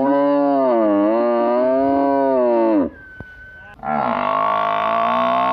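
A large bovine mooing twice: a long call of nearly three seconds that dips in pitch in the middle, then, after about a second's pause, a second long call.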